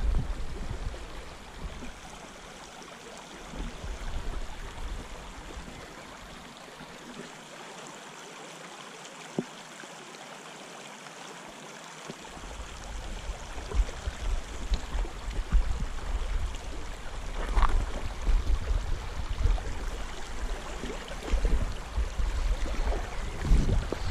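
Shallow river running over stony riffles, a steady rush of water. Wind buffets the microphone in low gusts at the start and again through the second half, and there is a single click about nine seconds in.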